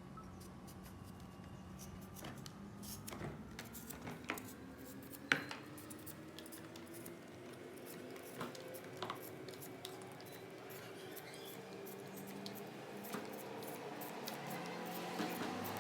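Scattered light clicks and clinks of food-preparation utensils being handled, with one sharper click about five seconds in, over a faint steady background.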